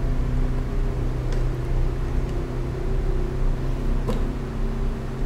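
A steady low hum, with one short click about four seconds in.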